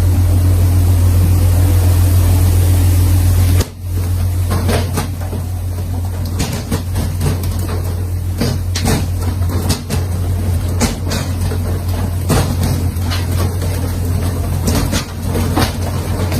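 Boat engine running with a steady low hum, broken by an abrupt cut about four seconds in; after the cut, repeated sharp knocks and clatter sound over the engine.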